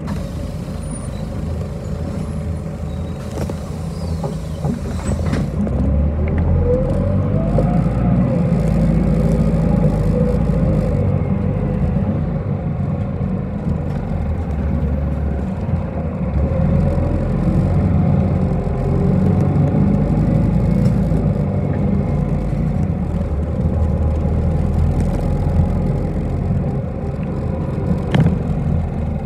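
A bus riding along: steady engine and road rumble, with a short rising whine about six seconds in as the sound grows louder.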